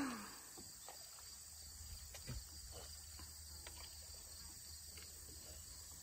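Faint, steady high-pitched chirring of field insects, with a few soft ticks.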